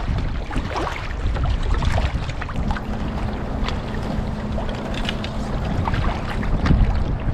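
Sea kayak being paddled: the paddle blades dip and splash in rough strokes and water slaps along the hull, with wind buffeting the microphone as a steady low rumble.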